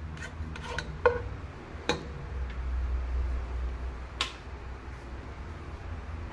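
A cooking spatula clicking and tapping against a nonstick pot a few times as cooking oil heats, the sharpest click about four seconds in, over a low steady rumble.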